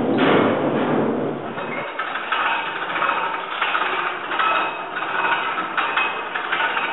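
For the first two seconds a loaded sack truck's wheels rumble across a hard floor under a wooden barrel. Then comes a hand-cranked wall crane's winch gearing, turned by hand to hoist a sack: irregular clattering and squeaking, with a sharp click about six seconds in.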